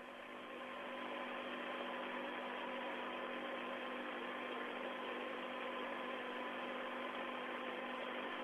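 Steady hiss of an open radio communications channel carrying a steady hum with faint whistle tones, rising in level over the first second or so and then holding even.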